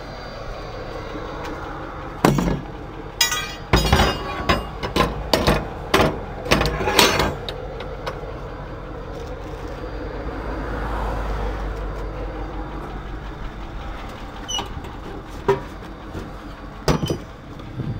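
A quick run of sharp metal clanks and knocks from tow-truck wheel-lift and dolly gear being handled, then a few single clicks later. Under it runs a steady low vehicle rumble that swells in the middle.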